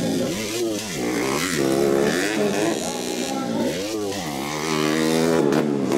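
Motocross bike engine revving, rising and falling in pitch several times as the throttle is opened and closed.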